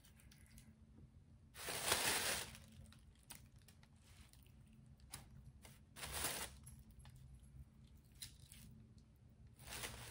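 Rubbery hand-casting mold being peeled off a plaster cast and handled over a plastic bag: three short bursts of rustling and tearing, about two seconds in, about six seconds in and near the end, with small clicks between.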